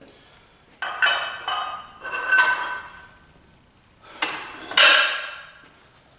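Metal gym weight equipment clanking: a few sharp hits that ring on in clusters, loudest about two and a half seconds in and again near five seconds in.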